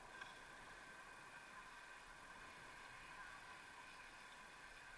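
Near silence: a faint, steady electronic hiss with no distinct sounds.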